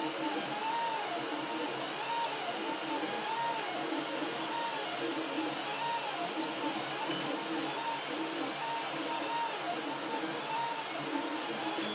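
3D printer stepper motors whining as the print head moves, the pitch rising and falling with each move and repeating a little more than once a second, over a steady hiss.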